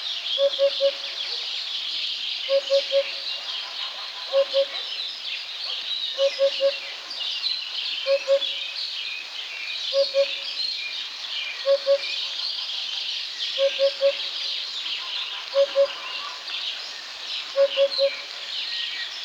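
Eurasian hoopoe singing its low hollow 'oop-oop-oop', groups of two or three notes repeated about every two seconds. A dense chorus of other small birds sings higher behind it.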